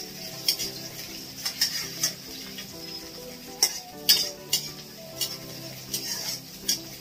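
Chopped onion and garlic sizzling in hot mustard oil in a kadhai, stirred with a spatula that scrapes and clicks against the pan at irregular moments, over soft background music.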